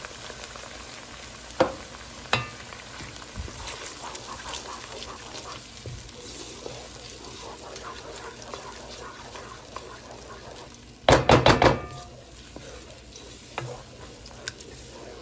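Freshly added tomato paste sizzling in hot oil with fried garlic-ginger paste, stirred with a wooden spoon. A few sharp knocks of the spoon against the pan, the loudest a quick run of knocks about three-quarters of the way through.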